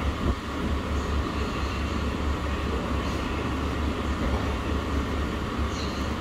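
Steady low rumble of background noise, with a few faint light clinks.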